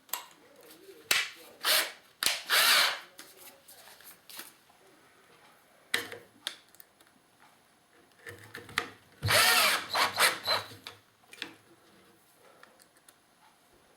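Power drill driving the screws back into the plastic clamp housing in short trigger bursts, then a longer run near the middle where the motor speeds up and slows again. The drill's torque is set too high for the plastic.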